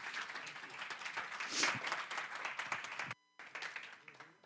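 Congregation applauding, a dense patter of many hands clapping that cuts off abruptly about three seconds in.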